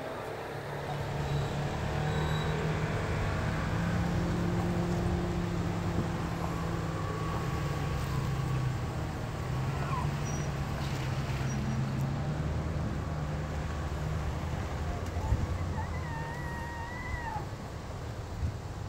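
Bull elk bugling: high whistled calls, the clearest one near the end with a wavering pitch. A low steady hum runs under most of it.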